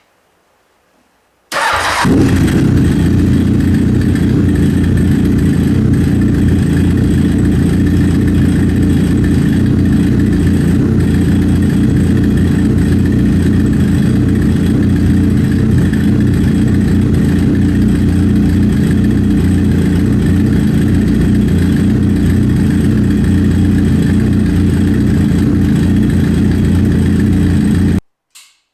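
Honda CB1000SF's inline-four engine breathing through a Maverick MV83 carbon silencer with a solid cut end: it starts about a second and a half in and settles into a steady idle, then cuts off suddenly near the end.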